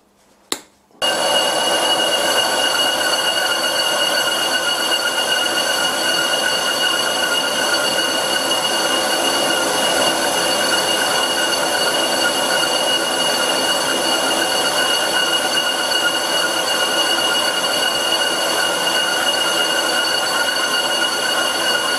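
Carbide insert taking a very light skim cut on a spinning cast iron brake disc in a 100-year-old bench lathe, setting up a steady, high-pitched squeal with several overtones that starts suddenly about a second in. The squeal is typical of tool chatter, which leaves chatter marks on the disc face.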